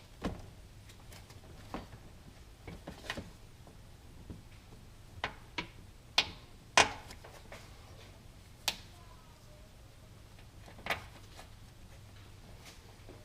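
About a dozen irregular sharp clicks and light knocks from hand work under a car during an oil change, over a low steady hum. The loudest knock comes just under 7 seconds in.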